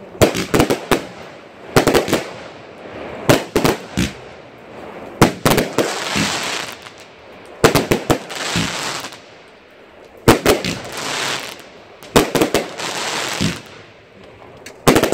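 Aerial fireworks going off: sharp bangs in quick clusters every second or two, several followed by crackling as the stars burst and glitter.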